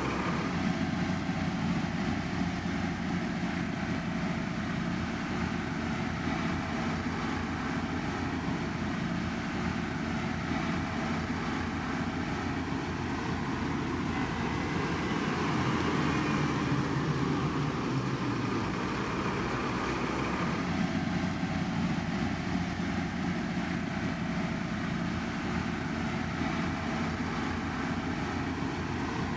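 Diesel engines of heavy road-construction machinery running steadily.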